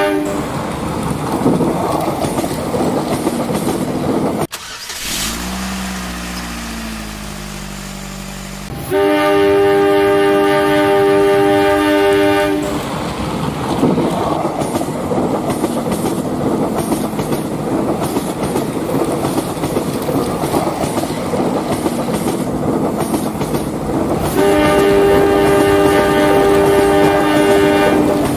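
Train horn sounding in two long, steady blasts, one about a third of the way in and one near the end, over the continuous rumbling clatter of a running train. A few seconds in, a quieter stretch with lower sliding tones interrupts the run.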